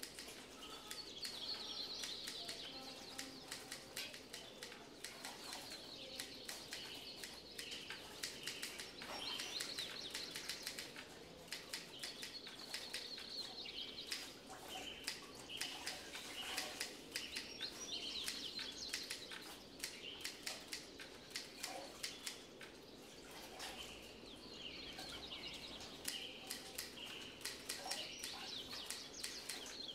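Birds chirping repeatedly over the splashing and sloshing of water as clothes are washed by hand in a metal basin.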